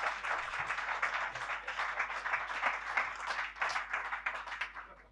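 An audience applauding, the clapping thinning and dying away near the end.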